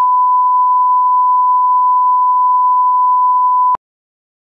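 Broadcast line-up test tone: one loud, steady beep at a single unchanging pitch that cuts off suddenly near the end.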